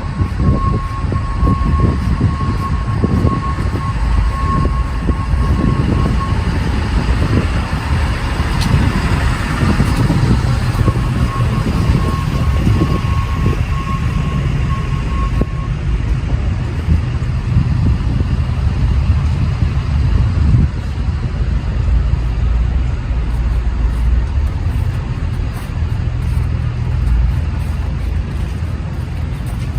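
Steady low rumble of city street traffic. A high electronic beeping, a rapid run of beeps on one pitch, sounds for the first six seconds or so and again from about ten to fifteen seconds in.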